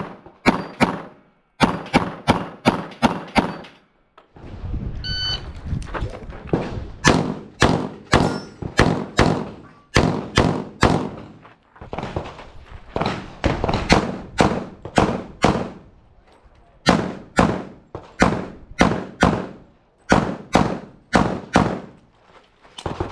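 Pistol shots fired in rapid strings during a USPSA stage, dozens of sharp cracks with short breaks of a second or so between strings.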